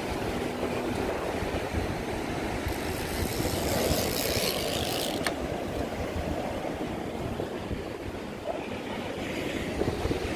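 Surf washing and breaking against a rock ledge, mixed with wind on the microphone, as a steady rushing noise; the rush grows louder and hissier about three to five seconds in.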